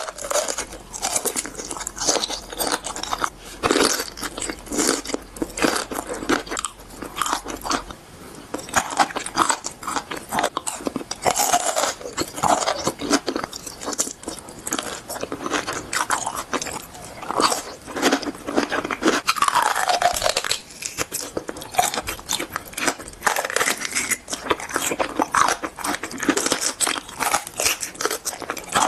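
Crisp food being crunched and chewed, a dense run of sharp crunches and crackles, with a few short falling squeaks.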